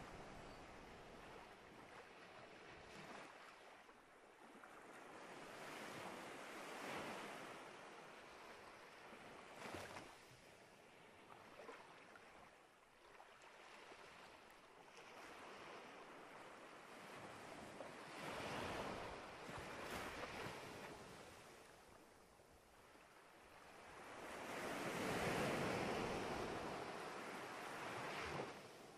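Soft rushing noise, like surf or wind, that swells and fades several times, loudest near the end.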